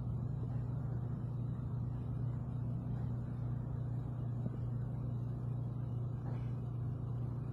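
A steady low hum with a faint background hiss, as from a motor or fan running, with no change throughout.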